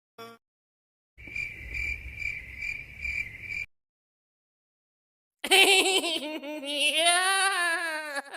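Cricket-chirping sound effect, the stock "awkward silence" gag: a high chirp repeating about twice a second for a couple of seconds, then cutting off. After a pause comes a louder, wavering, voice-like wail that rises and falls in pitch.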